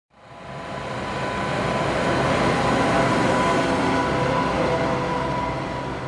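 Fendt 828 Vario tractor towing a loaded Perard manure spreader, driving past on a road: a steady engine hum mixed with tyre and running-gear noise. It swells in from silence, then fades out near the end.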